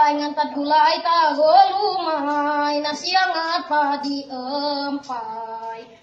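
A boy singing solo, unaccompanied, in held notes that bend and waver, phrase after phrase, stopping just before the end.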